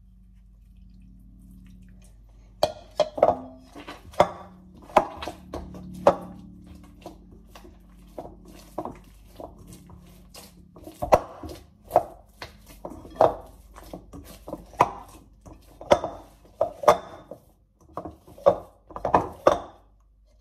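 Hand kneading wet flour-and-water dough in a glass bowl: irregular squelching smacks, about one or two a second, beginning about two and a half seconds in.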